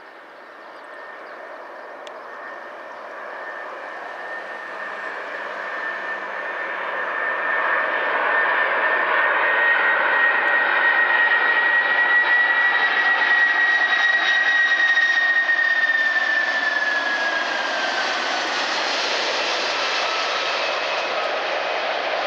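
Boeing 747-400 jet engines on final approach, a steady roar with a high whine that grows louder as the plane nears and is loudest around the middle. After that the whine drops in pitch and the sound eases slightly as the airliner passes and heads for the runway.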